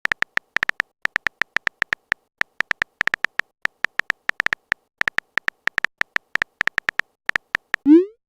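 A rapid, irregular string of short electronic blips, all on one high pitch, in the manner of a chat-typing sound effect as message text appears. Just before the end, a quick rising swoop.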